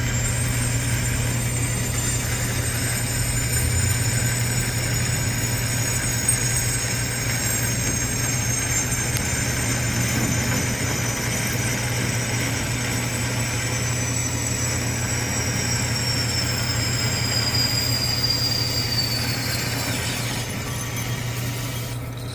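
Metal lathe running while a boring bar cuts a steel sleeve, hogging out a lot of material, with a steady low hum and a high-pitched whine that slowly falls in pitch through most of the cut.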